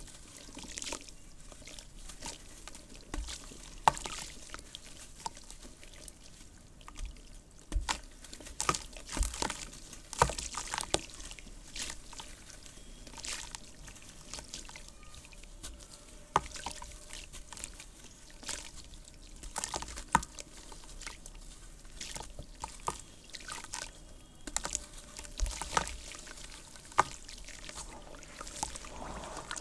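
Red dirt crumbling and falling onto a floor in water, with irregular soft crunches and sharp clicks over a faint trickle of water.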